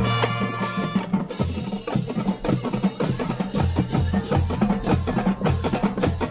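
Marching band playing: a held brass chord at the start gives way to a fast drumline passage of snare and tenor strokes over pitched marching bass drum notes.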